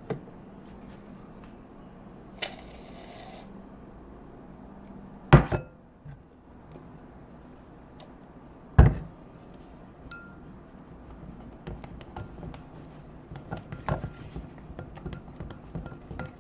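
Fork clinking and tapping against a bowl while stirring slime: two sharp knocks a few seconds apart, then a run of quick light clinks near the end.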